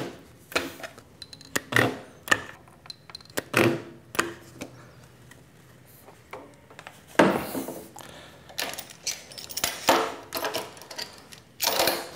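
Irregular metallic clanks and clicks as a spot welder, locking clamps and a sheet-steel tray are handled on a steel fixture table, opening with a short sharp crack as a spot weld fires with sparks. A longer clatter comes about halfway through.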